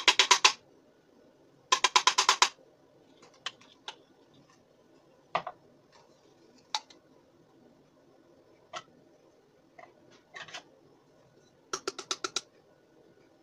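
A spice shaker shaken hard over a pot in three quick bursts of rapid rattling strokes, about eight a second, with single light clicks and taps between the bursts.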